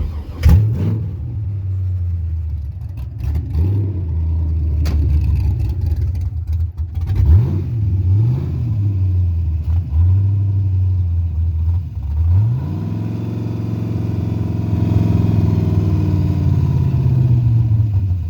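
Carbureted 5.3-litre LS V8 starting, revved up and down several times, then settling into a high fast idle before stopping suddenly near the end. The owner is chasing a fast idle and a start-then-die problem, which he suspects lies in the carburetor, the timing or a vacuum leak.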